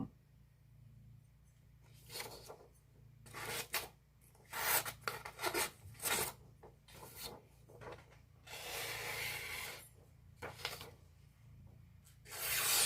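Freshly sharpened hand-forged blacksmith knife being drawn through material in a sharpness test: a series of irregular scraping strokes, the longest lasting about a second and a half, about nine seconds in.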